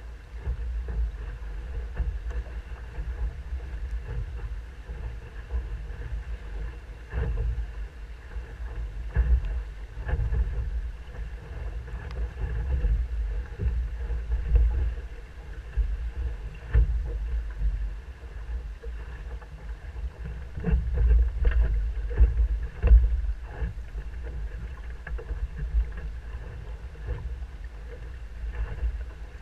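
Musto Skiff dinghy hull rushing through choppy water under sail upwind, with spray and slaps against the hull. Wind buffets the boat-mounted microphone in uneven surges.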